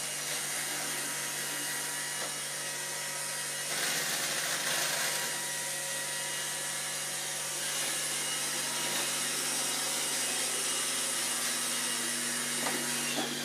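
Robot vacuum cleaner running: a steady motor hum under the hiss of its suction and brushes, louder for a moment about four seconds in.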